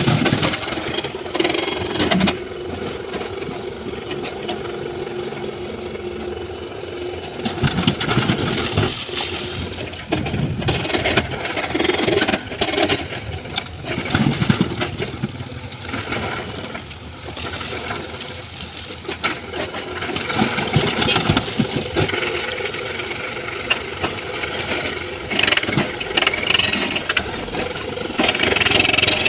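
Diesel excavator engine running steadily. From about eight seconds in, irregular clattering and knocking comes over it, as rock is loaded into a dump truck's bed.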